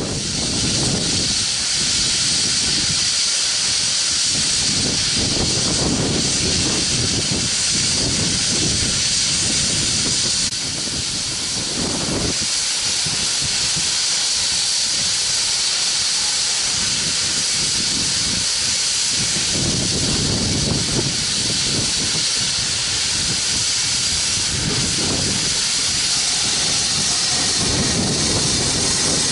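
GWR Large Prairie 2-6-2T tank engine 4110 approaching with a passenger train, steam hissing steadily and loudly over slow, uneven low beats.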